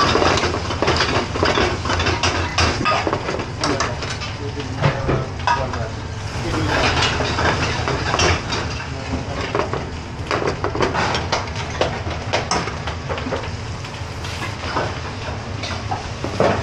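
Metal spoons and ladles clinking and scraping against aluminium frying pans as curries are stirred, in many quick irregular knocks over a steady rushing kitchen background.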